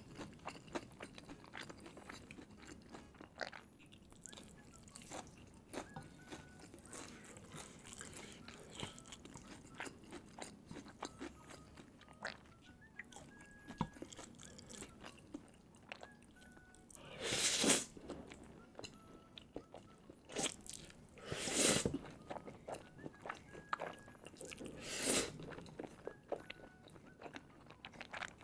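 Close-miked eating sounds: a person chewing and biting crunchy food, with many small wet clicks. Three louder, longer noisy bursts come in the second half.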